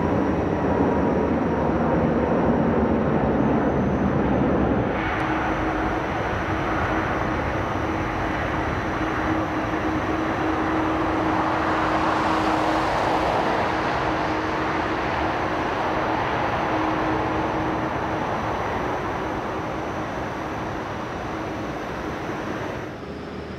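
Jet engine noise from heavy four-engine airliners. For about five seconds an Airbus A380 climbs out with a low rumble. After a sudden change, a Boeing 747 freighter's engines run as it moves slowly on the ground close by: a steady hum with a rushing noise that swells in the middle and slowly fades near the end.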